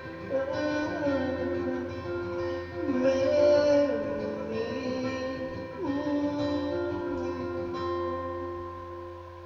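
Acoustic guitar strummed through the closing bars of a song, with a voice holding and sliding through long wordless notes. It fades out near the end.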